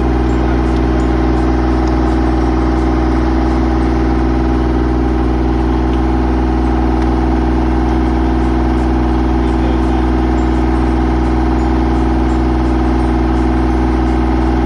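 Mini excavator's diesel engine running steadily at idle, with no revving, as its dozer blade is moved close by.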